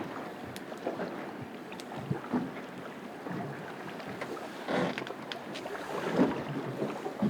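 Water slapping irregularly against the hull of an anchored boat, with wind on the microphone and a few short knocks.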